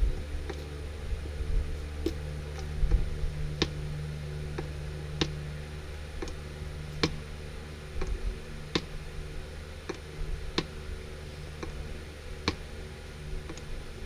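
Hand fluid pump being stroked to push gear oil into a manual transmission's fill hole, clicking at an even pace with a louder click about every two seconds and fainter ones between.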